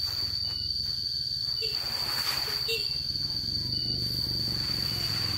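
An insect's steady high-pitched buzz over a low steady hum, with two swishing strokes of a rake drawn through drying rice grain on a tarp, about two seconds in and again near the end.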